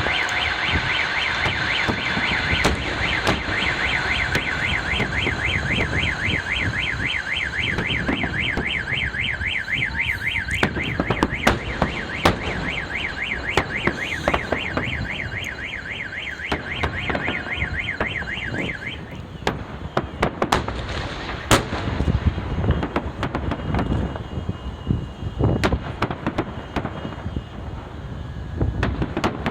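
A car alarm wails rapidly up and down and stops about two-thirds of the way through, while fireworks salute shells go off in sharp bangs. The bangs come more often and stand out more after the alarm stops.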